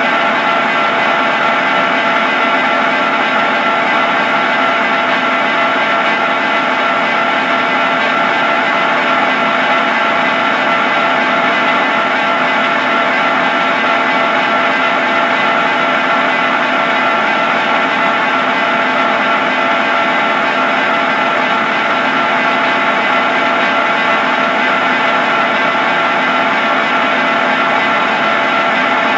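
Barber-Colman 16-16 gear hobber running through its automatic cycle: a steady machine whine with several held tones over the hum of its drive, unbroken and even in level.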